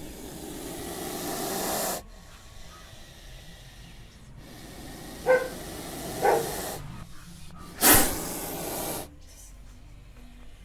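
Snake hissing in separate bursts. A long hiss swells and cuts off, two short pitched growl-like sounds follow about halfway through, then a sudden loud hiss about a second long.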